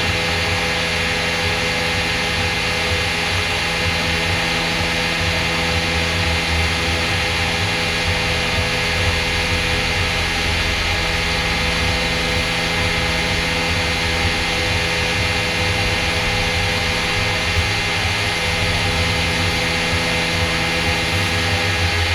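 CNC machine running steadily as it machines a dart barrel, a constant mechanical hum with several steady tones over a broad hiss.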